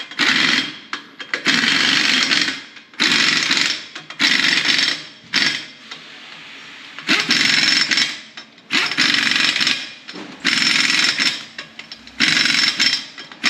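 Impact wrench running in repeated bursts of about a second each, with a longer pause midway, driving on and tightening the wheel nuts of a van's newly fitted wheel.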